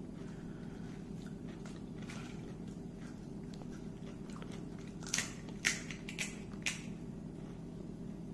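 Crisp fuchka (pani puri) shells crunching: a few faint crackles, then four sharp cracks about five to seven seconds in.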